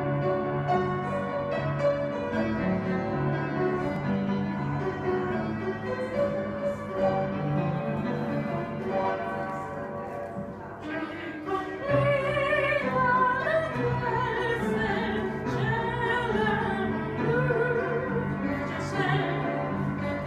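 Upright piano playing a slow introduction; about halfway through a woman's voice enters, singing with a wide vibrato over the piano.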